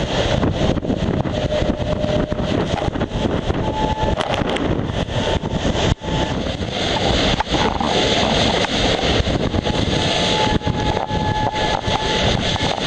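Wind buffeting the microphone and water rushing past the hull of a Volvo Open 70 racing yacht sailing at high speed, full of crackling knocks and spray. A faint steady whine comes and goes.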